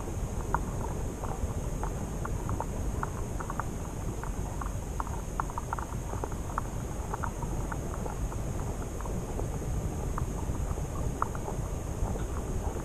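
Crucian carp feeding underwater: irregular short, sharp clicks, a few a second, as the fish suck in and chew bread. They sit over a steady low underwater rumble.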